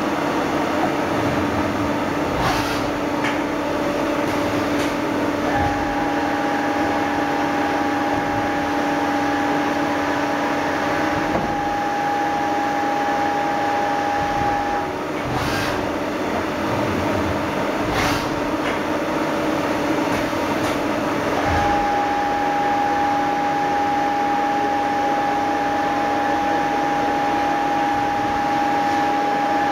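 CNC turning and milling machine running: a steady machine hum with a high steady spindle tone that comes in about five seconds in, stops around fifteen seconds and starts again about twenty-one seconds in. A few sharp clicks are heard, the clearest near the middle.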